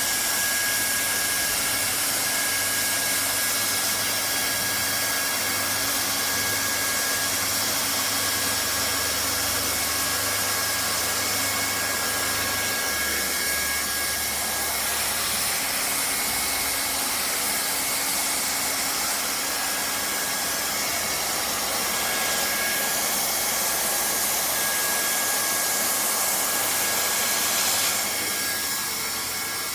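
Handheld hot-air plastic welding gun running, its blower giving a steady rushing hiss with a thin motor whine as it blows hot air for welding plastic. The level eases off a little near the end.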